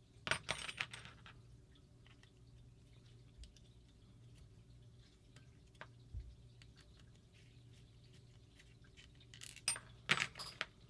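Small metal parts and tools clinking and rattling as they are handled on a workbench, in two short bursts at the start and near the end, with scattered light ticks between, over a steady low hum.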